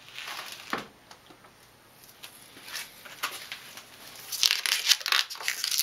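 Fingers rubbing and picking at the rubbery Plastidip coating on a plastic dirt-bike front fender, working at its edge to lift it. Faint scratchy rustles at first, growing louder and denser from about four seconds in.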